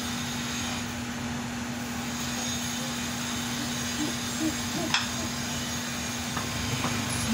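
Steady background hum: a constant low tone over an even hiss, like a running fan or motor, with a faint click about five seconds in.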